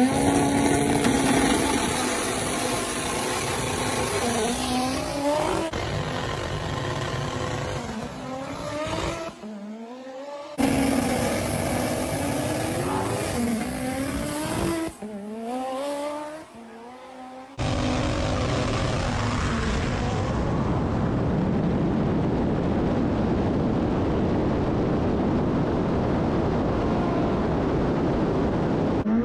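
Street-race cars at full throttle, their engines climbing in pitch and dropping back at each gear change, cut together in several short pieces. For the last third there is a steady rushing noise of wind and road at speed.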